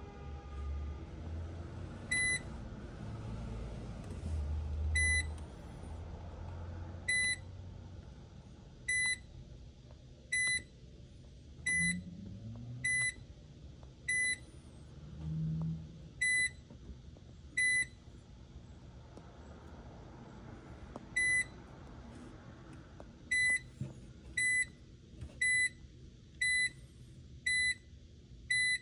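Speed Queen commercial washer's electronic control panel beeping at each button press: about twenty short, high beeps at irregular intervals, coming quicker in the last few seconds, as the machine is stepped through its price-setting and setup modes.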